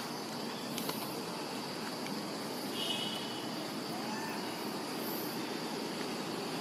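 Outdoor ambience with steady insect buzzing and a high whine, plus a short chirp about three seconds in.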